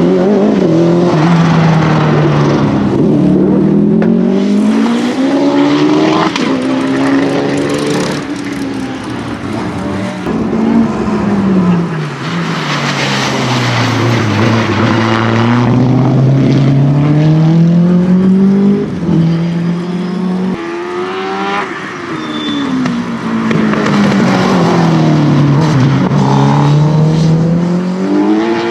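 Racing car engine on a sprint run, its revs climbing and falling again and again as it accelerates and slows through the corners, with abrupt pitch drops at gear changes.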